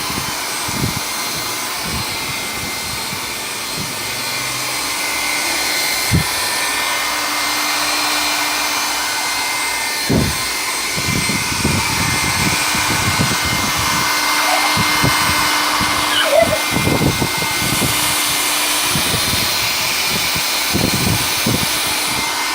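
Philips handheld hair dryer running steadily: a continuous rush of blown air with a thin motor whine over it. Irregular low thumps come in, more of them in the second half.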